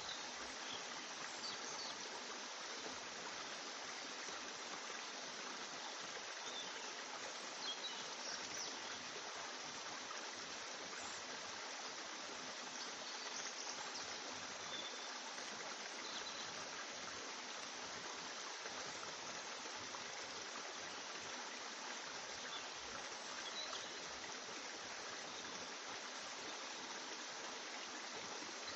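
Steady, even rushing noise like a flowing stream, unchanging throughout, with a few faint short chirps above it.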